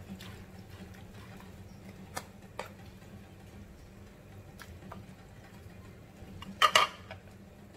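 Black cooking utensils knocking and scraping against a large pan while chicken pieces are turned in thick simmering sauce: a few light clicks, then a louder clatter of several knocks near the end.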